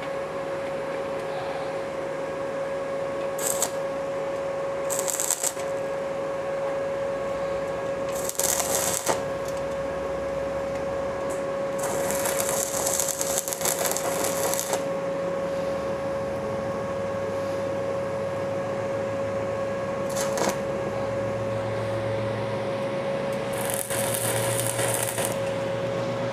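Stick (MMA) arc welding on thin sheet steel with a small 130 A inverter welder: the electrode arc crackles and spits in six short bursts, the longest near the middle lasting about three seconds, over a steady high hum.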